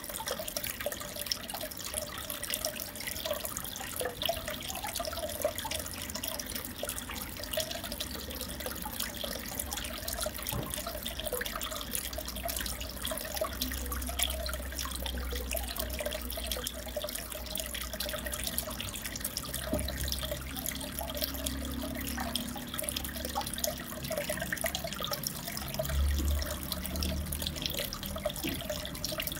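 Aquarium water trickling and bubbling steadily, with a low rumble that swells now and then in the second half.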